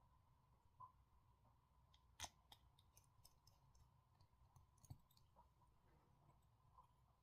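Near silence broken by a few faint, sharp clicks and ticks of small parts and tools being handled during smartphone reassembly. The loudest click comes about two seconds in and another near five seconds. A faint steady tone runs underneath.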